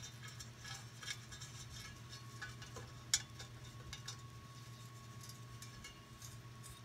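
Faint, scattered metallic clicks and taps of a bolt being worked into threads at a Chevy small block's flywheel, over a steady low hum. The sharpest click comes about three seconds in. The bolt is going in stiffly because the threads are a little dirty.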